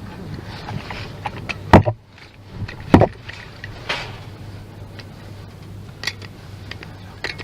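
Scattered knocks and taps, two of them loud and sharp about a second apart, over a steady low hum.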